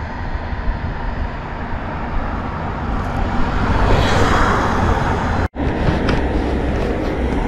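KTM 390 Duke's single-cylinder engine idling under a steady low rumble of wind and road noise, with a brushing rustle of the rider's jacket against the helmet microphone about four seconds in. The sound cuts out for an instant about five and a half seconds in.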